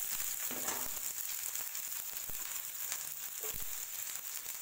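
Sliced onions sizzling as they hit hot mustard oil with golden-brown cumin seeds in a frying pan, a steady hiss, with a few light knocks partway through.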